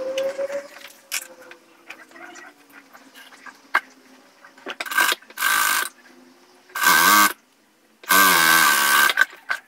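Industrial straight-stitch sewing machine running in three short bursts of stitching, starting about five seconds in; each burst spins up quickly and stops abruptly. Light rustling and clicks of fabric being handled come before them.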